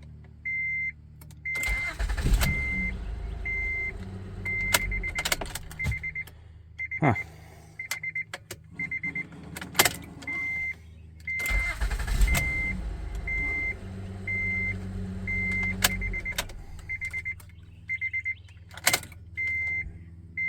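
2010 Honda Odyssey's V6 engine started twice. Each time it catches at once and idles steadily for a few seconds before being shut off, with no sign of the long crank the customer reported. A dashboard warning chime beeps about twice a second throughout, along with a few clicks.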